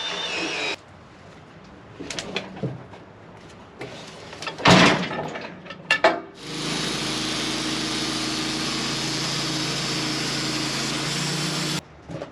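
Portable sawmill machinery. A loud saw-and-engine run stops under a second in. Then come scattered knocks and one heavy thump of hickory wood being handled, and after that about five seconds of steady engine running that stops abruptly near the end.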